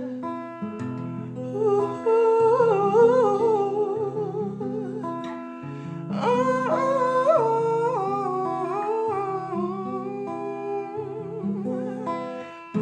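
Acoustic guitar playing slow held chords under a wordless hummed vocal line with gliding runs, in two phrases: one about a second in and a louder one about six seconds in.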